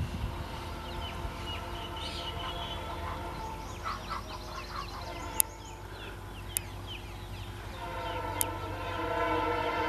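An approaching EMD WDP-4 diesel locomotive: a steady chord of tones and a low hum build up from about eight seconds in, with birds chirping in the middle and three sharp clicks.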